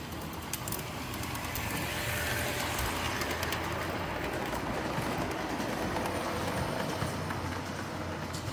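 G scale model train running past on brass track, its wheels rumbling and clicking on the rails. It grows louder as the locomotive and cars pass and fades as the last car pulls away.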